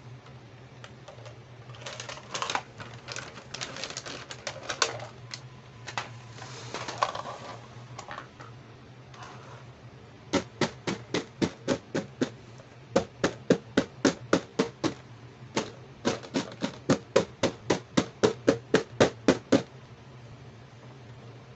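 Clear plastic packaging crinkling as toys are handled inside a plastic bag. Then fingers tap quickly on a hard clear plastic toy box, about four to five sharp taps a second in several runs.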